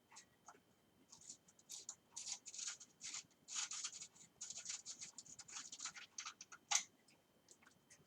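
Bicycle stem faceplate bolts being unscrewed with a hand tool: a quick run of small clicks and scrapes, busiest in the middle, with one sharper click about seven seconds in.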